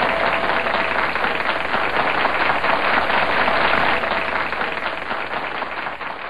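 Sitcom studio audience applauding, a dense crackle of many hands clapping, fading away over the last couple of seconds.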